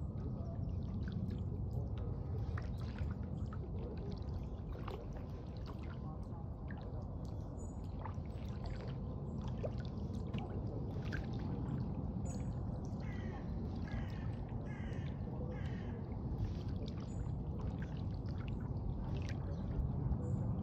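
Water trickling and dripping around a canoe moving on a river, over a steady low rumble. About two-thirds of the way through, a bird calls four times in quick succession.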